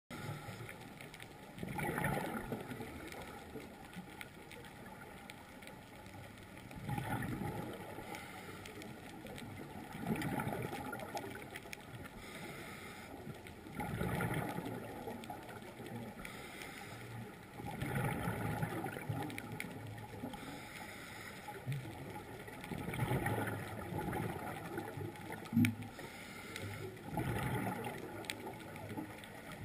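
Scuba diver's regulator breathing underwater: gurgling exhalations about every four seconds. A short sharper sound comes a few seconds before the end.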